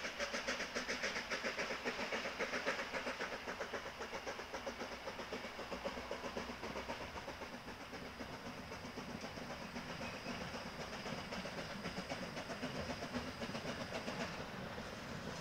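Small steam locomotive working a train at low speed, its exhaust beating in a fast, even rhythm of chuffs, strongest in the first few seconds.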